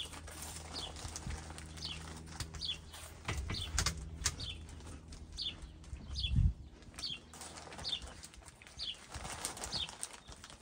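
A small bird calling over and over, a short falling chirp about once a second, over scattered crisp clicks of chewing crunchy cheese puffs and two low thumps near the middle.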